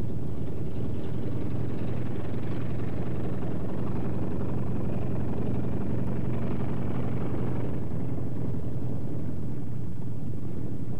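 Radial engines of T-28 Trojan trainers running at low taxi power: a steady, low, pitched drone. The higher part of the sound grows brighter for a few seconds in the middle, then eases back.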